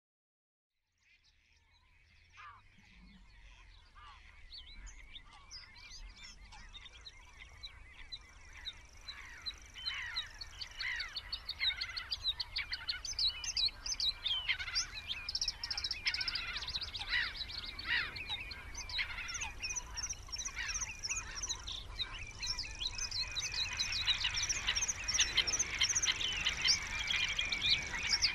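A chorus of small birds chirping and twittering, with many quick overlapping calls, fading in after about a second of silence and growing steadily louder. A faint low rumble runs underneath.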